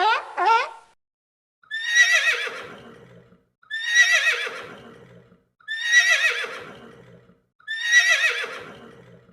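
A horse neighing four times: the same whinny repeats about every two seconds, each one starting high, quavering and falling away. Two short calls end within the first second.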